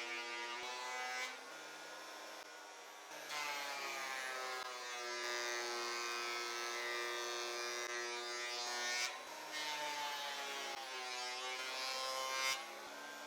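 Makita 2012NB portable thickness planer running, with boards fed through to bring them to thickness: a steady motor hum that grows louder and noisier during three cutting passes, the first near the start, a long one from about three seconds in, and a third from about nine and a half seconds in.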